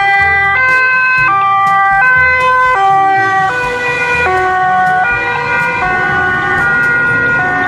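Two-tone siren of a German fire-brigade ambulance sounding continuously, alternating between a high and a low note about every three quarters of a second. The pitch drops slightly about halfway through as the vehicle passes and drives away.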